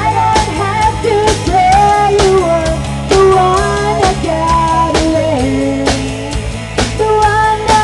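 A live band playing a song: electric bass and drum kit keeping a steady beat, with a woman's sung melody over them.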